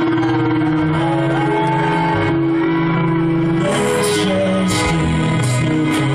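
Live rock band playing loudly through a hall PA, heard from the crowd: long held guitar and bass chords, with several cymbal crashes from a little past halfway.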